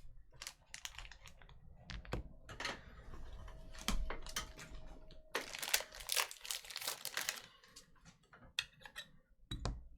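Trading cards and their plastic holders and packaging being handled: scattered light clicks and taps, with a stretch of plastic crinkling a little past the middle.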